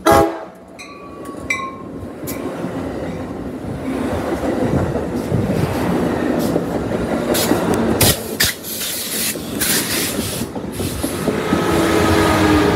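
Amtrak Pacific Surfliner train passing close by: a horn blast cuts off just after the start, then the rumble of the bilevel cars builds with sharp wheel clacks over the rail joints. Near the end the Siemens Charger diesel locomotive at the rear comes by, adding a steady engine drone as the noise peaks.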